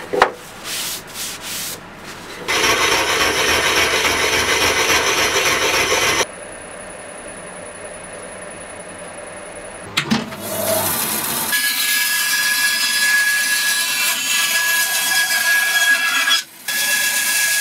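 A quick run of workshop sounds. First a paper towel rubs over a resin-and-burl blank in a few short strokes, then comes a few seconds of loud, even scraping noise and a quieter stretch with a faint high steady tone. From a little past halfway, a bandsaw cuts through elm burl with a steady whine.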